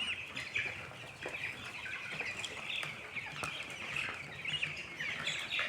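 A flock of chickens making a steady, dense chatter of clucks and high peeps.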